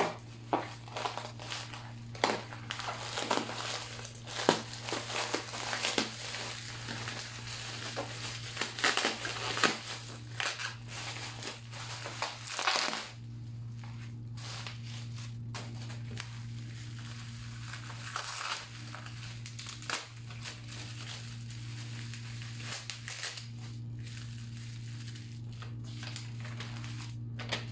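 Plastic packaging crinkling and crackling as a parcel is unwrapped by hand, busy for about the first thirteen seconds and then only occasional rustles, over a steady low hum.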